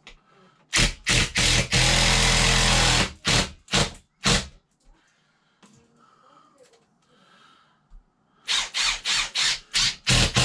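Cordless drill turning a hole saw through a plaster ceiling, run in short trigger pulses and one longer cut of about a second, then a pause of several seconds, then a quick series of short pulses near the end.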